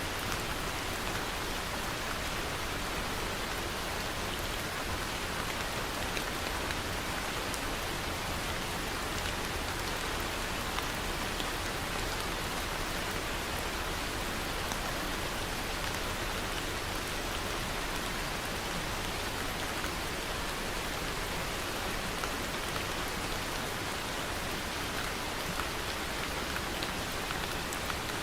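Steady rain falling on a surface: an even hiss with many small drop ticks, unchanging throughout.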